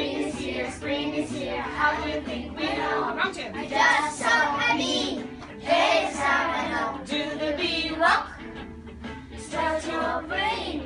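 A recorded children's action song plays, with a group of young children singing along.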